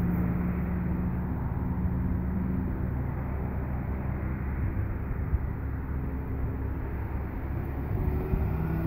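Vehicle engine idling: a steady low rumble with a faint hum that shifts slightly in pitch.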